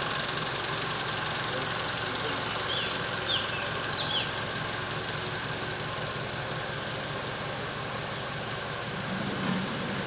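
A bus's diesel engine idling steadily. A few short, high chirps come about three to four seconds in.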